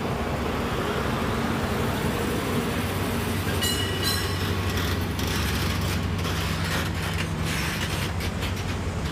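Steady mechanical rumble with a low hum, and a brief high squeal about four seconds in.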